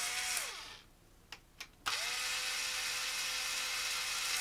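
Power screwdriver with a Torx bit driving screws into the motor housing. One run winds down about half a second in, followed by a couple of small clicks. A second run spins up at about two seconds, holds a steady whine and winds down at the end.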